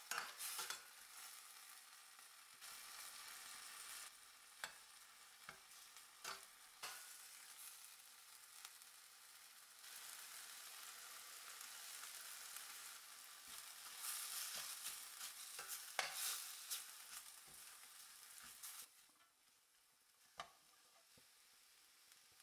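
Vallarai leaves, shallots and dal sizzling in oil in a stainless steel pan while a spatula stirs them, with scattered knocks and scrapes of the spatula against the pan. The sizzle fades away near the end.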